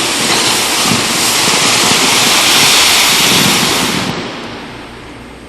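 Figure skate blades scraping and carving across the ice: a loud hiss that swells, peaks about three seconds in, and drops away a second later.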